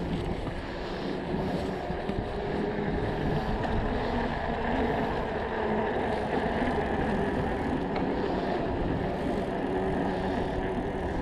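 Steady wind rush on the microphone and tyre rumble from a moving electric bike, an even noise with no distinct events.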